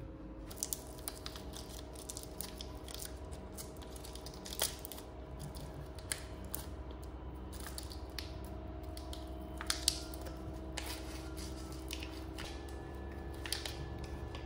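Foil-lined plastic packet of air-dry clay being torn open and peeled back by hand: a run of irregular crinkles and crackles with a few sharper snaps, over a steady faint hum.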